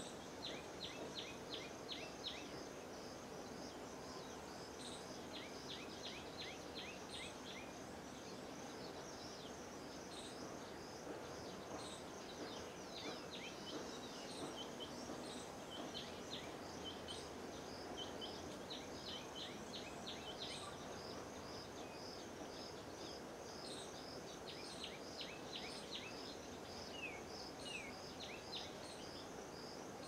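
Birds calling in repeated bursts of quick, short chattering notes, over a steady run of evenly repeated high insect chirps and a constant background hiss.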